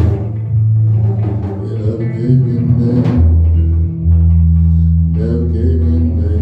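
Power trio playing an instrumental rock jam: electric bass holding long low notes under electric guitar and a drum kit.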